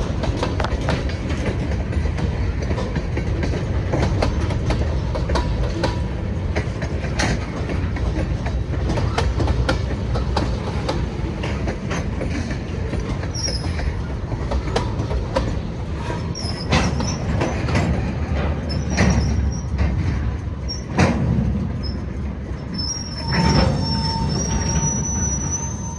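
Freight train cars rolling past on steel rails: a steady low rumble with frequent clicks and clanks of wheels over rail joints. Short high-pitched wheel squeals start about halfway, and a long squeal runs through the last few seconds.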